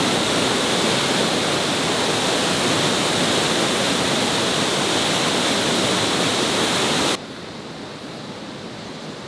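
Loud, steady rush of a mountain waterfall pouring down granite rock slabs. About seven seconds in it cuts off suddenly, leaving a much fainter steady background hiss.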